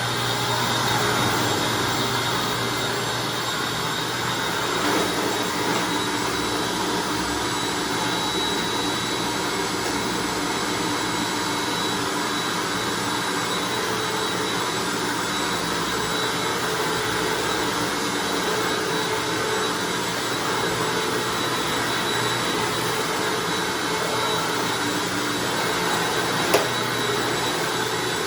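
Hoover Anniversary upright vacuum running steadily with a constant high whine, cleaning a hard floor. There is one short click near the end.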